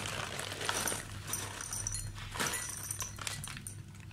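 Dry cat food kibble poured from a plastic bag into a bowl, the pellets rattling and clinking against the bowl and each other.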